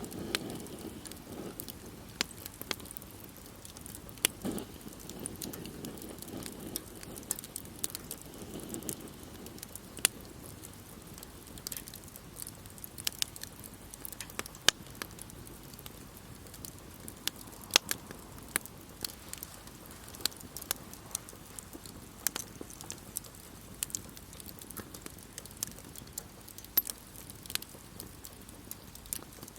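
Wood campfire crackling: irregular sharp pops and snaps from the burning wood, over a faint steady hiss.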